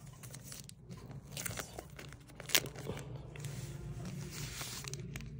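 Thin plastic phone sleeve crinkling and rustling as hands work a smartphone out of it. One sharp snap comes about two and a half seconds in, then a denser rustle.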